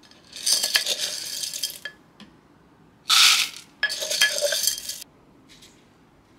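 Coffee beans poured from a glass into the plastic hopper of an electric burr grinder, rattling and clicking in two pours, with a short louder rush of beans near the three-second mark.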